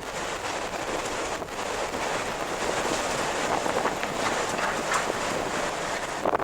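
Strong wind blowing steadily as a dense rush of noise, swelling and easing slightly in gusts.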